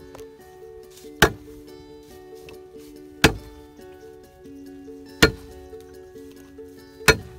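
Four sharp chops of a knife on a cutting board, evenly spaced about two seconds apart, over background music.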